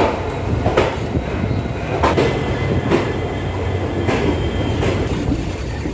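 Wheels of an Indian Railways passenger express running over rail joints and points as the train pulls out of the station: a steady low rumble with sharp knocks at uneven spacing, about one a second.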